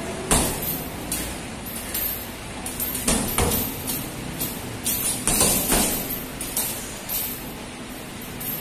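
Boxing gloves striking a hanging heavy bag in irregular flurries of punches, some hits landing in quick pairs.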